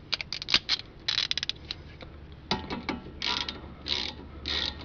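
Hand ratchet clicking as a rear brake caliper bolt is run in: rapid clicks in the first second, then several short bursts of clicking with each swing of the handle.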